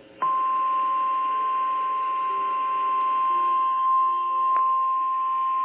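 Weather radio warning alarm tone: a single steady high-pitched beep near 1050 Hz that comes on a moment in and holds at one pitch. It is the alert that comes before a warning message is read out, here a severe thunderstorm warning. There is a brief click about four and a half seconds in.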